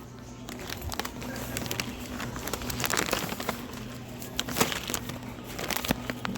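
Crinkling and scattered clicks of dog toys and their plastic packaging being handled and taken off a store rack, over a steady electrical hum.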